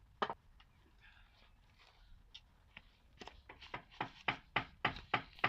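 Japanese pruning saw cutting into a wooden block in short rhythmic strokes, about four a second, starting a little past halfway and growing louder. A single sharp click comes just after the start.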